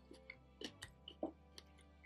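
Close-miked chewing of saucy seafood: a handful of soft wet mouth clicks and smacks, over a faint steady hum or tone bed.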